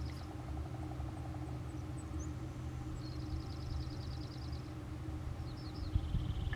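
Small songbirds singing rapid, even trills, three of them about a second and a half long, with a few thin high chirps between. Under them runs a steady low mechanical hum.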